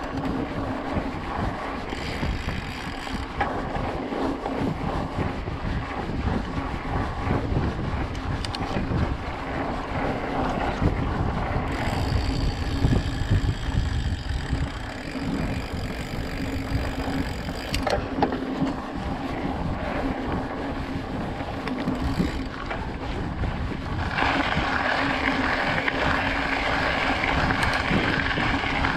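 Wind rushing over the microphone over the rumble of a hardtail mountain bike's 29-inch knobbly Maxxis tyres rolling on a dirt and gravel track. The rolling noise grows a little louder and brighter near the end.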